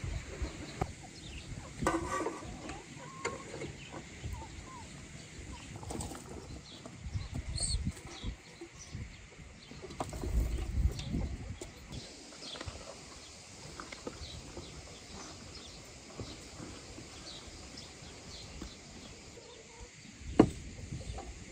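Farmyard ambience: chickens clucking now and then and small birds chirping, with a few low thuds and rustles. The loudest is a sharp knock near the end.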